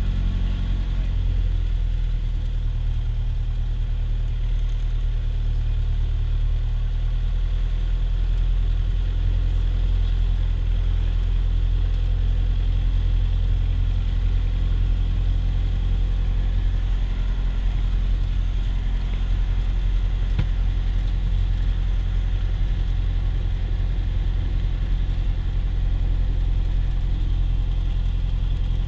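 Cessna 172's piston engine and propeller running steadily at low power while taxiing, heard from inside the cabin as an even, low drone.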